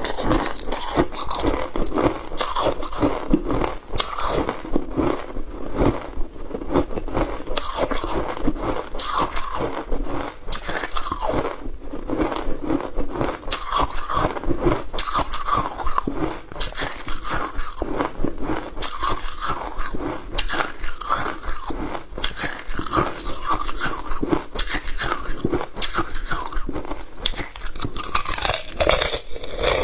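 Hard frozen ice being bitten and chewed close to the microphone: a dense, irregular run of crunching as pieces of purple moulded ice are cracked between the teeth and ground up.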